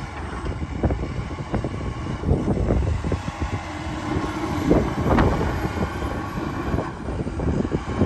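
Heavy farm machinery running, with irregular clattering and knocks over the engine noise.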